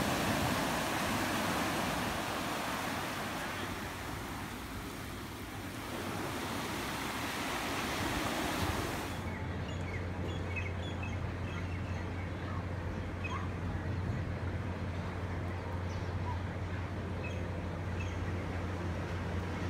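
Surf breaking and washing up over a black sand beach, an even rushing noise. About nine seconds in it cuts to a steady low hum with scattered faint high chirps.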